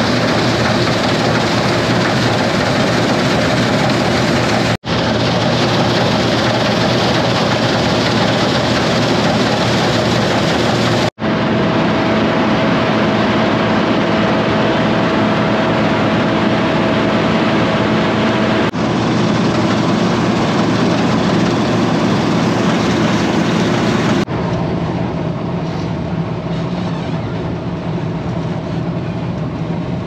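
Combine harvester running in the field: a steady mechanical drone with some held tones. It cuts off abruptly several times between shots, and after the last cut, about two-thirds of the way in, it is quieter.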